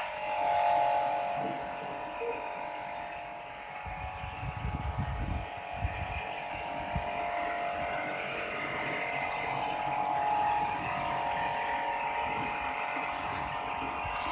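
A small electric motor running steadily with a buzzing whine, with some low rumbling knocks about four to six seconds in.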